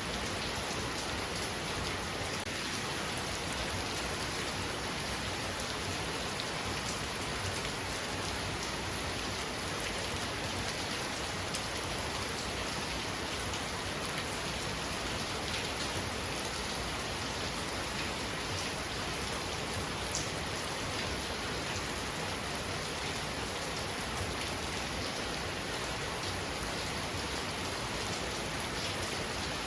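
Heavy rain falling steadily, an even hiss of rain on surfaces with scattered sharper drop ticks.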